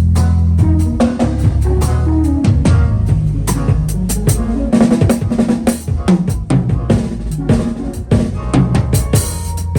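Drum kit played in busy fills, with bass drum, snare and rimshot hits in quick succession, over a sustained bass line.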